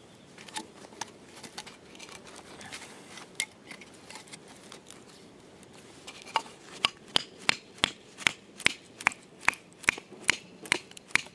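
Batoning firewood: a knife driven into a piece of wood by blows on its spine from a wooden baton. A few light taps at first, then from about six seconds in a steady run of sharp knocks, two or three a second.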